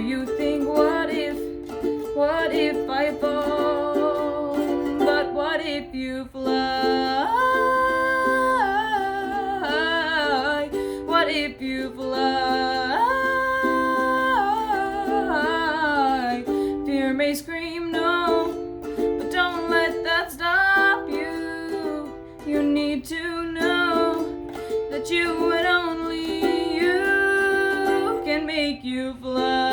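Female voice singing a melody with long held, wavering notes, over a steadily strummed plucked-string accompaniment.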